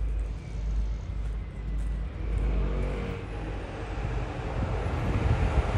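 A motor vehicle passing on the road: a low engine rumble with rising road noise that grows louder through the second half.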